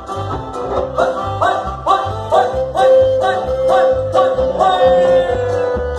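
Live band playing an instrumental break of Andean-style dance music: a quick plucked-string melody over a steady bass and drum beat, with a held note coming in about two seconds in.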